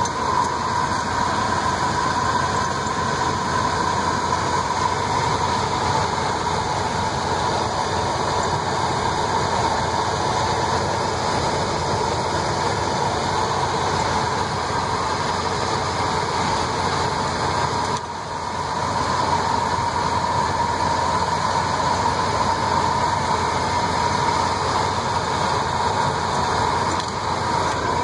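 Ford 351 Windsor V8 running at a steady idle, heard close up in the open engine bay, with a steady whir over the engine noise. It runs smoothly.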